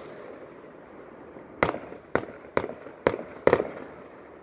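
Fireworks going off in the distance: a run of five sharp bangs, irregularly about half a second apart, starting about a second and a half in, each trailing off in a short echo.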